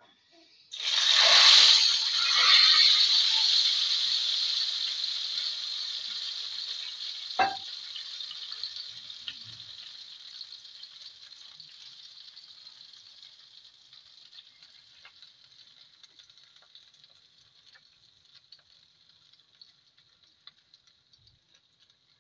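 Hot tadka oil with cumin seeds and dried red chillies poured onto a pot of shollah, sizzling loudly at once and then dying away slowly over many seconds. A single short knock sounds about seven seconds in.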